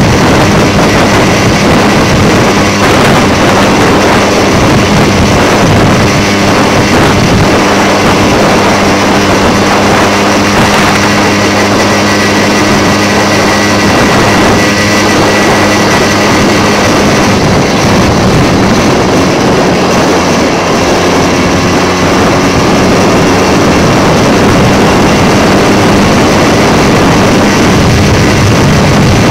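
Puch Maxi-P moped's single-cylinder two-stroke engine running flat out at steady high revs on a downhill run, with wind rushing over the microphone.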